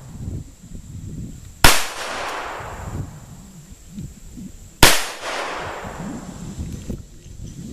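Revolver firing two .38 Special handloads with 125-grain Rainier bullets, about three seconds apart. Each shot is followed by a long echo trailing off.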